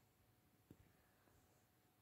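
Near silence: room tone, with one faint brief tick about a third of the way in.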